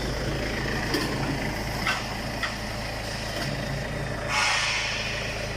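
CNC router running with a steady hum while its Y axis homes, with a few light clicks and a short hiss about four seconds in.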